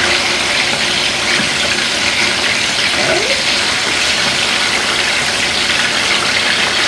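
Seasoned bone-in, skin-on chicken thighs sizzling skin-side down in a hot skillet as more pieces are laid in: a steady hiss.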